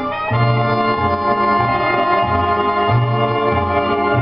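Recorded organ music played back through a push-pull 245-triode tube amplifier and speakers: held chords over a bass line that changes note about twice a second.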